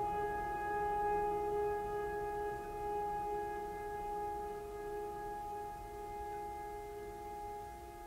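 Ambient background music: a drone of several long held tones, slowly fading.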